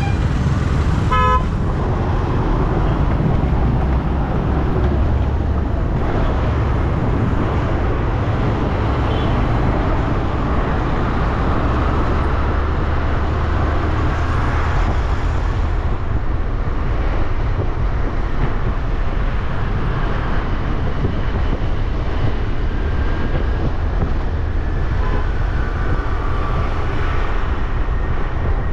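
Road and traffic noise from a motor scooter riding in city traffic: a steady low rumble, with a short vehicle horn toot about a second in.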